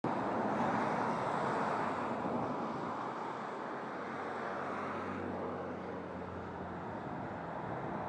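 Steady outdoor background noise: an even hiss, with a faint low hum from about three to seven seconds in.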